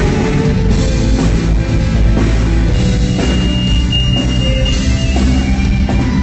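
Live rock band playing loud through a PA: electric guitar over a drum kit.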